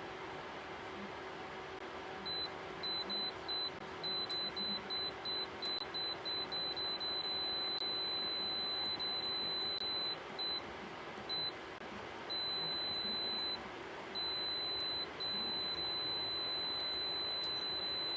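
Electronic beeping at one high pitch, starting about two seconds in as a run of short irregular beeps, then longer held tones of a few seconds each. Under it runs the steady hum of the ceramic fan heater.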